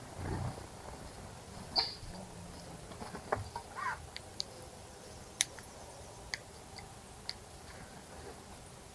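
Wild birds giving short chirps and calls, with scattered sharp clicks a second or so apart, over a faint steady hiss.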